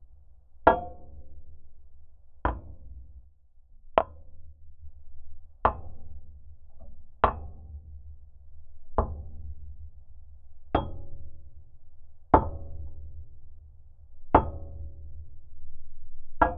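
Rusted steel of an old truck struck in a slow, even rhythm, picked up through a geophone contact microphone: about ten sharp knocks, one every second and a half or so, each with a short metallic ring, over a steady low rumble.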